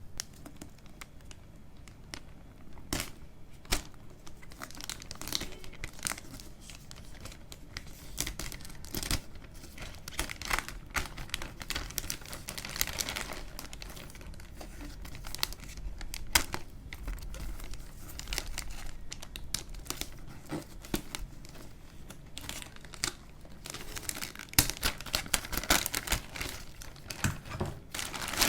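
Camera box packaging being handled and opened by hand: irregular crinkling and tearing of wrapping with scattered sharp clicks and rustles, busiest near the end.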